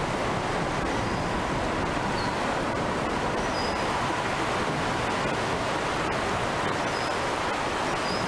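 Steady rushing of a fast-flowing river running over shallow rapids, with a few faint high chirps now and then.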